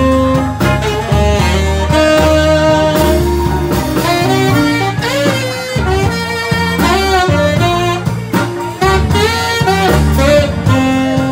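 Saxophone playing a loud, bending lead melody close up, over a live band's guitar and bass accompaniment.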